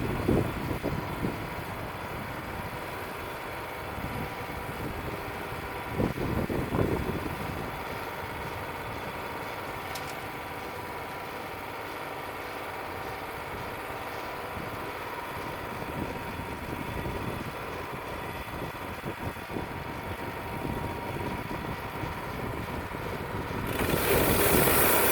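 Wood-Mizer LT35 portable band sawmill's engine running steadily at idle. About a second and a half before the end, a loud rushing noise comes in and holds.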